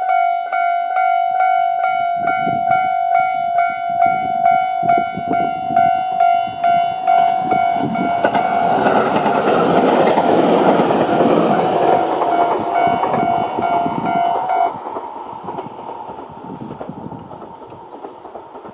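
Japanese level-crossing electronic warning bells ringing in a fast, repeating ding pattern as a Tobu 800 series electric train passes over the crossing with a rising rush and clatter of wheels. The bells cut off suddenly near the end once the train has cleared, leaving fading train noise.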